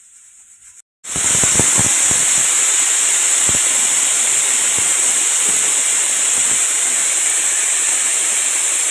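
Stovetop pressure cooker's weight valve whistling: about a second in, steam bursts out with a loud, shrill hiss that then blows steadily, spluttering at first. The whistle is the sign that the cooker has come up to pressure.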